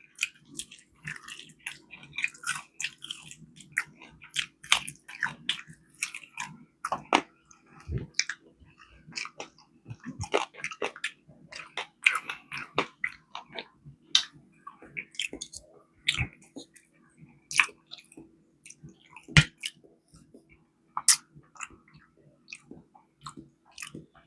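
Close-miked chewing, with many irregular wet and crunchy bites and smacks. A faint steady low hum runs underneath.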